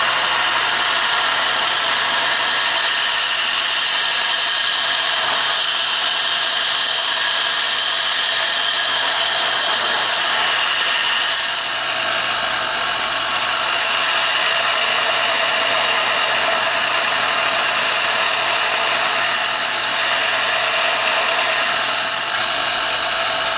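JET combination belt-and-disc sander running, its sanding belt grinding a flat spot into the end of a steel pry bar. The grinding is steady and loud, easing briefly about halfway through.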